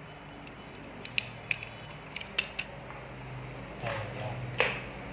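A few sharp clicks, then two louder scraping rasps near the end, over a low steady hum: the handling of small parts and tools during a soldering-station repair.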